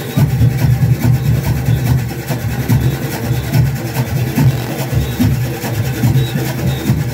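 Junkanoo goatskin drums beating together in a dense, pulsing low rhythm.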